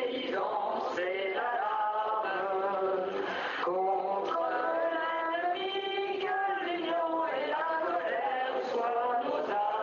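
Music with voices singing a chant-like melody in long held notes.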